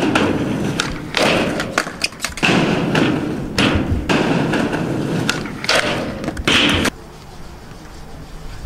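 Skateboard wheels rolling on concrete, broken by several sharp knocks and thuds as the board is popped, flipped and strikes a low metal flat bar in a kickflip backside tailslide attempt. The noise cuts off suddenly about seven seconds in.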